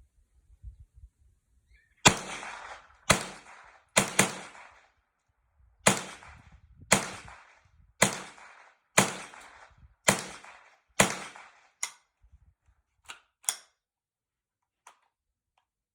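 Winchester Wildcat semi-automatic .22 LR rifle firing ten shots, mostly about a second apart with a quick pair near the start, each shot with a short ringing tail; every round cycles without a stoppage. A few much fainter clicks follow the last shot.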